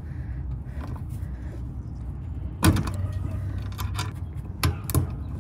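Ratcheting service-valve wrench with a hex bit clicking and slipping on a rooftop AC unit's suction service valve stem, a few sharp clicks with the loudest a little under three seconds in. The valve stem's hex is stripped and will not turn. A low steady hum runs underneath.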